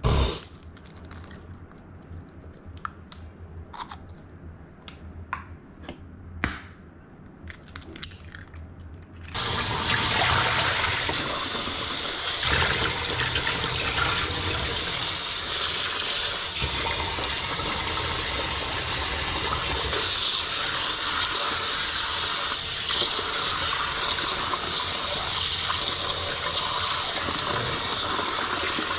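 A few sharp taps and cracks of eggshells against a bowl, then from about nine seconds in a kitchen faucet runs steadily into a plastic bowl of fish fillets being rinsed by hand.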